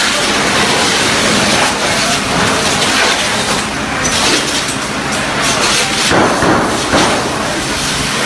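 Steady rushing noise of a large shophouse fire being doused with a fire hose's water spray. Several sharp cracks and pops come in quick succession about six to seven seconds in.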